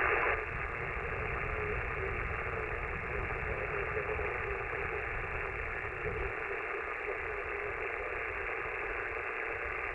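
Steady static from an HF transceiver's speaker tuned to an empty 40-meter sideband channel, the hiss cut off above the receiver's voice filter, with a faint wavering tone in the noise and a low rumble underneath: the band is quiet, with no station answering the call.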